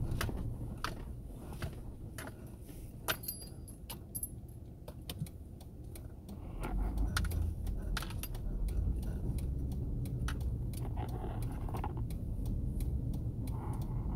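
Vehicle heard from inside, with a low engine and road rumble that swells about six seconds in as it pulls away and gets up to speed. Scattered sharp clicks and light rattles run throughout.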